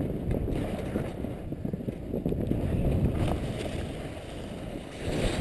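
Wind buffeting the microphone of a skier going downhill through deep powder snow, a low, gusty noise throughout.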